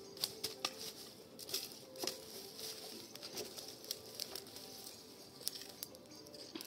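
Wood fire in a fire bowl crackling, with irregular sharp pops and snaps.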